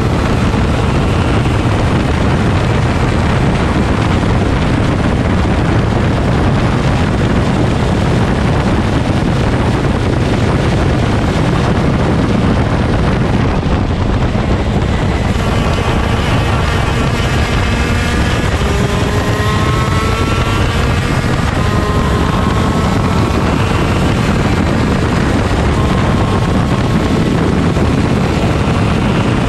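A 125 cc two-stroke shifter kart engine at racing speed, under heavy wind buffeting on the microphone. From about halfway the engine note climbs again and again as the kart accelerates and revs through the gears.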